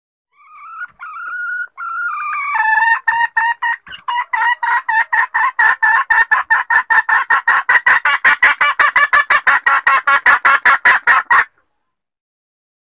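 Junglefowl hen calling: a couple of drawn-out rising notes, then a long run of rapid clucks that speeds up to about five a second and stops abruptly.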